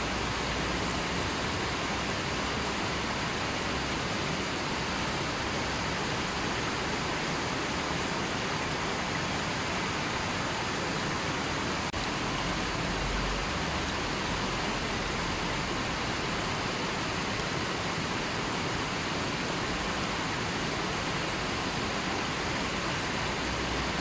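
Shallow river rushing over rocks and stones: a steady, even rush of water.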